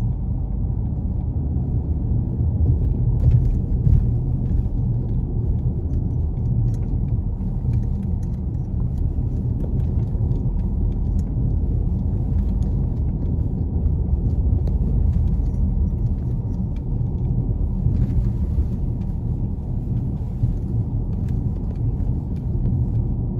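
Steady low rumble of a car on the move: engine and road noise, with faint scattered rattles and ticks over it.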